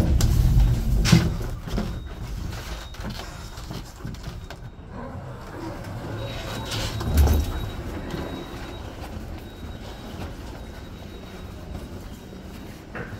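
Elevator car in motion: a low mechanical rumble, loudest in the first two seconds and steadier after, with a low thump about seven seconds in.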